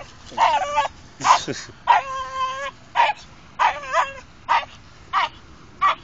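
A dog whining and yipping over and over: short, high, wavering cries about once or twice a second, with one longer held whine about two seconds in.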